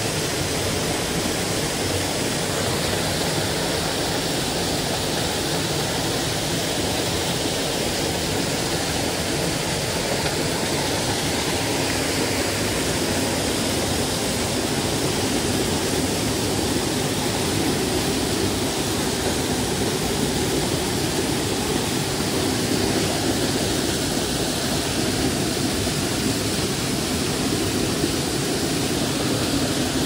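Small mountain-stream waterfall pouring into a plunge pool: a steady, unbroken rush of falling water.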